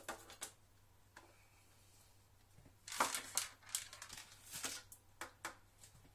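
Thin plastic packaging crinkling and crackling as it is handled, a quick run of crinkles from about three seconds in, after a couple of faint clicks.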